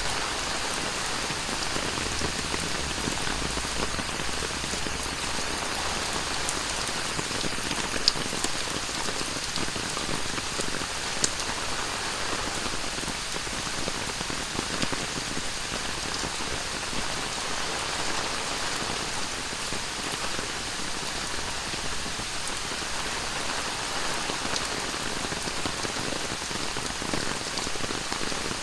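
Heavy tropical rain falling steadily, hissing and pattering on hard surfaces, with a couple of sharp drip ticks.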